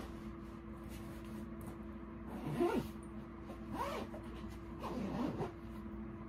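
Backpack zipper being pulled shut in three short strokes, beginning about two and a half seconds in, over a steady low hum.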